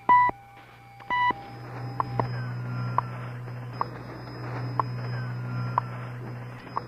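Time-signal beeps from the Rádio Relógio Federal broadcast, heard through the radio. Two short pips come at the start and about a second in, then a tick about once a second over a steady low hum, marking the seconds after the time announcement.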